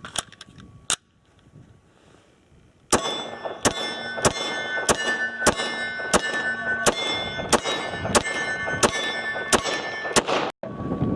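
HK Mark 23 .45 ACP pistol fired: two shots, a short pause, then a steady string of about a dozen shots roughly two every 1.2 seconds. A metallic ringing carries on between the shots.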